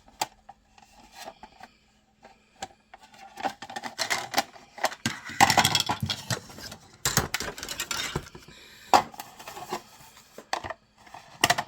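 Hard plastic model-kit parts clicking, knocking and scraping against each other as they are handled and test-fitted together, with a longer burst of clattering and rustling in the middle.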